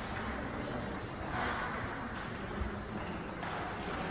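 Celluloid-type table tennis balls clicking off tables and bats: a scattering of short, sharp ticks.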